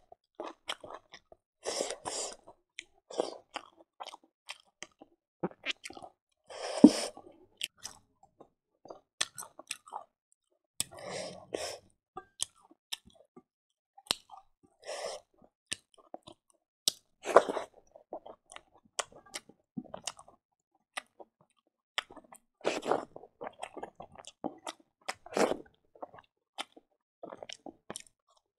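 A person chewing and crunching a meal of fried silkworms with rice and greens, eaten by hand. Irregular mouth clicks are broken by short, louder crunchy bites, the sharpest about seven seconds in.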